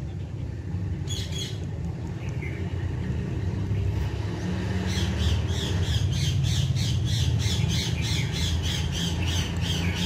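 Rose-ringed parakeet (Indian ringneck) squawking: one short call about a second in, then from halfway through a fast, even run of harsh calls, about three a second, over a steady low rumble.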